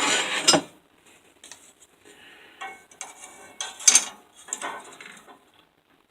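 Steel flat bar and tools handled on a work surface, with metal clatter about half a second long at the start and then scattered light clinks and taps.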